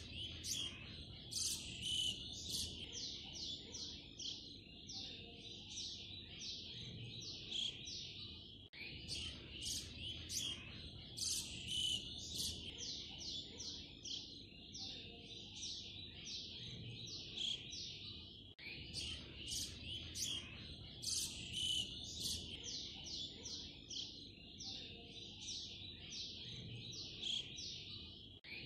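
Many small birds chirping in quick overlapping calls, from a loop of about ten seconds that repeats about three times with abrupt joins. A faint low hum lies underneath.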